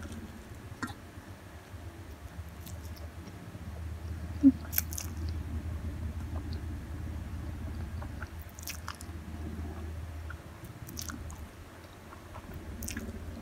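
A person chewing a big mouthful of Samyang spicy instant noodles close to the microphone, with small wet mouth clicks, a sharp click about four and a half seconds in, and a steady low hum underneath.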